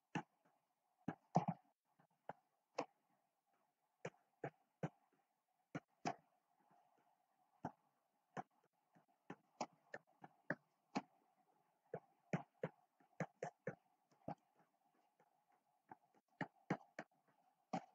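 Faint, irregular taps and clicks of a stylus pen on a tablet screen during handwriting, about one or two a second, over a faint scratchy hiss.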